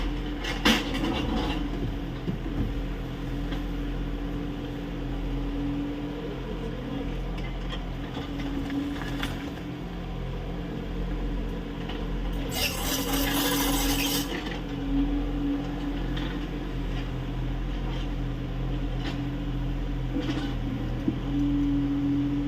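Kubota U30 mini excavator's diesel engine running under work, with a hydraulic whine that rises and drops away as the arm moves. There is a sharp clank a little after the start and a rush of noise lasting about two seconds just past the middle.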